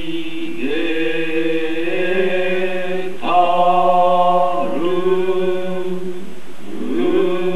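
Men's voices chanting a waka poem in the slow traditional court reciting style of the New Year's Poetry Reading. The voices draw out long held notes that slide to a new pitch every couple of seconds, over a low note held steadily beneath.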